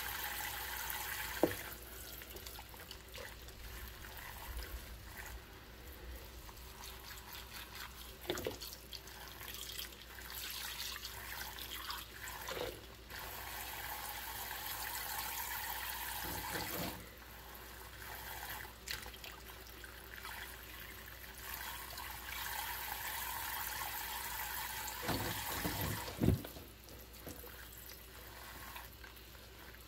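Tap water running steadily into a stainless steel sink full of soapy suds, with a few sharp knocks and clinks of dishes being handled. Near the end, water pours out of a tipped cup into the suds.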